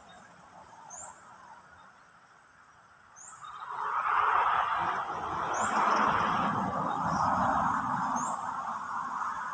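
A bird's short rising chirp, repeated about every two and a half seconds, over a louder noisy rush that swells up about three and a half seconds in and holds.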